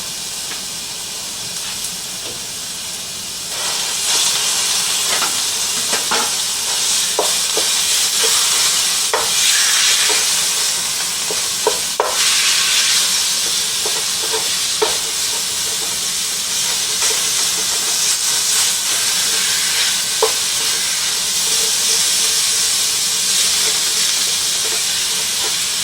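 Ground beef sizzling in a hot frying pan as it is broken up and stirred to brown, with scattered scrapes and taps of the utensil on the pan. The sizzle grows louder about three and a half seconds in.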